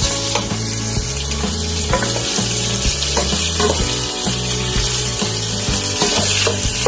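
Diced pork belly and onion sizzling in hot oil in a wok, stirred with a wooden spoon that clicks and scrapes against the pan as the pork browns. Background music with a steady bass line plays underneath.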